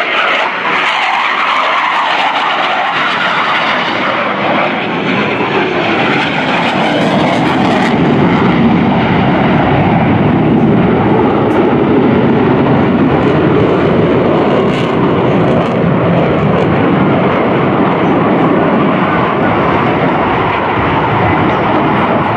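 Jet engines of a Blue Angels F/A-18 Hornet making a fast pass: a loud, steady jet rush whose pitch slowly slides as the jet goes by, growing a little louder about eight seconds in.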